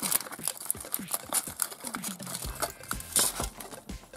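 Foil wrapper crinkling as it is peeled off a hollow chocolate ball, with a run of quick sharp clicks and cracks as the ball is broken open and the plastic toy capsule inside is handled.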